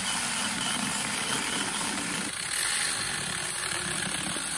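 Cordless mini chainsaw running steadily under load, its chain cutting through a small log without stalling. Its battery pack has been rebuilt with 3000 mAh 18650 lithium cells.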